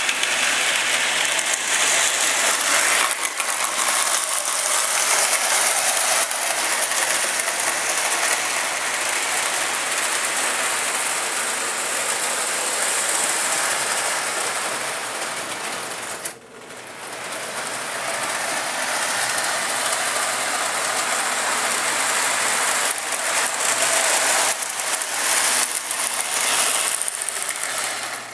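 Freshly rebuilt Lionel 2-4-2 Scout toy steam locomotive running on three-rail O-gauge track with freight cars in tow: a steady mechanical gear rattle with wheels clattering over the rails. It drops out briefly a little past halfway.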